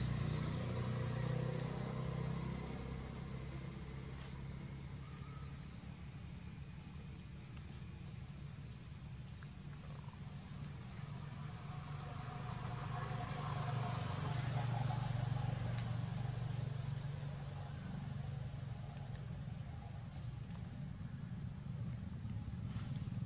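Insects buzzing steadily at one high pitch over a low, uneven background rumble.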